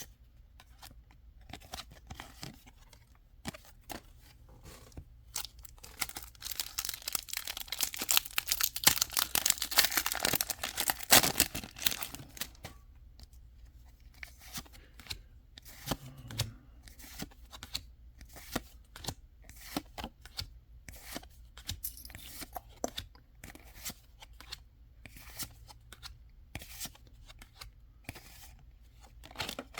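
A Pokémon trading-card booster pack being torn open, a crinkly tearing of the foil wrapper about six seconds in that lasts several seconds, followed by a long run of short clicks and slaps as the cards are flipped through one by one.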